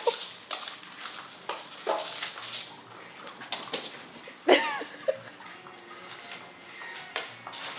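Bubble wrap crackling and clicking in scattered bursts as a beagle mouths and tugs at it. About halfway through comes one short, high dog whine, the loudest sound.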